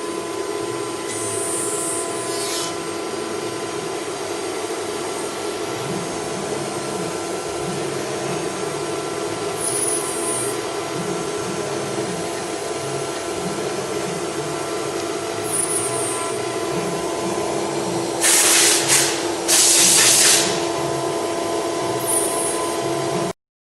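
CNC router spindle running with a steady whine while its cutter machines the workpiece, with short bursts of high, hissing cutting noise every few seconds and two louder ones late on. The sound stops abruptly just before the end.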